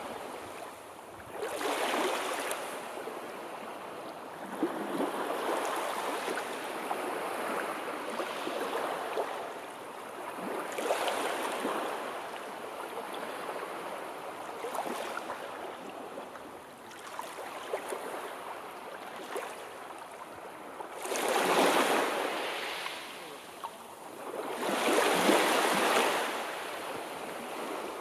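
Sea waves washing in and drawing back, the surf swelling and fading every few seconds, with two larger surges near the end.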